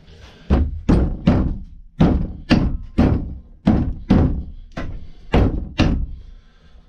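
Hammer repeatedly striking a chisel to drive the old wooden handle out of the eye of an old axe head. The blows are sharp and come about two a second, with brief pauses.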